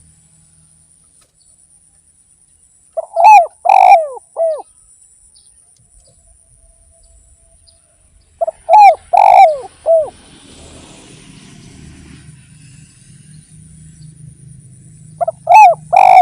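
Spotted dove (derkuku) cooing: three loud phrases of about four falling coos each, roughly six seconds apart.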